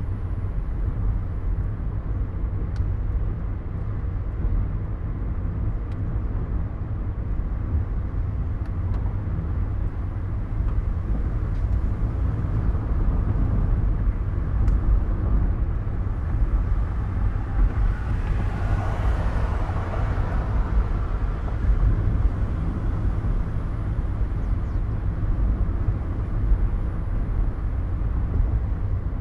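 A car driving along: steady low road and engine rumble, with a louder rushing swell that rises and fades about two-thirds of the way through.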